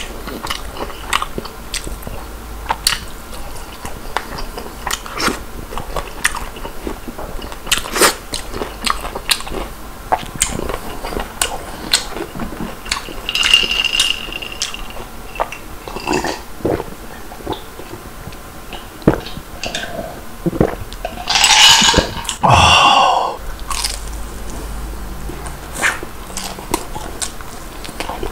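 Close-miked chewing and crunching of crispy fried chicken and french fries, a steady run of short crisp bites. About 21 seconds in, a louder noisy sound lasting under two seconds stands out.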